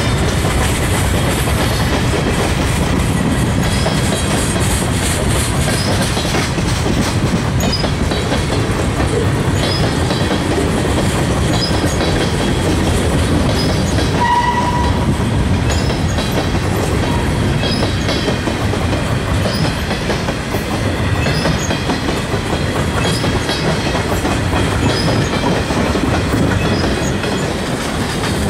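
Freight cars rolling past close by: a steady rumble of steel wheels on the rails with clickety-clack over the rail joints. A short high-pitched tone comes about halfway through.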